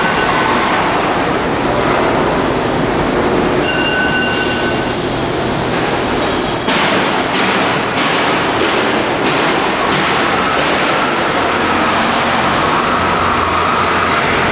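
Loud, steady factory-floor machinery noise. A high-pitched squeal comes in briefly twice, about two and four seconds in, and from about seven seconds on there is a string of short, uneven bursts of noise.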